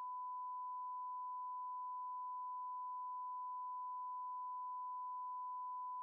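A single pure electronic tone like a test tone, held at one mid-high pitch and one level without a break.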